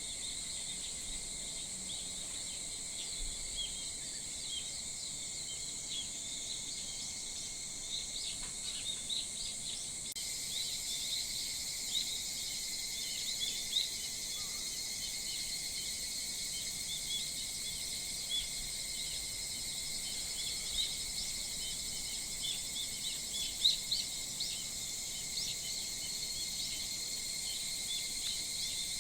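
Early-morning chorus of insects and wild birds: a steady high-pitched insect drone throughout, with many short bird chirps and calls scattered over it.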